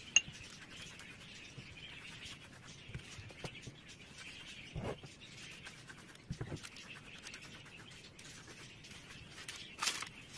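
Quiet handling of oiled eggplant slices on a parchment-lined baking tray: soft taps, rustles and the silicone pastry brush working over the slices, with a louder rustle near the end.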